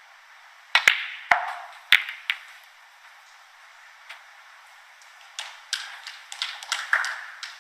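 Snooker balls clicking: a few sharp, separate knocks as the cue ball runs into the reds, then a quicker run of clicks near the end.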